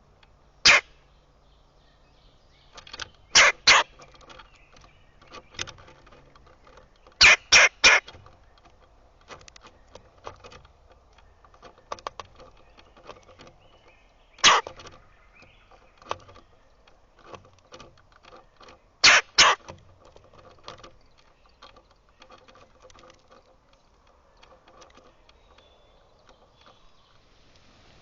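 Birds pecking and tapping at a feeder: sharp knocks, the loudest ones single or in quick runs of two or three, with many fainter taps in between.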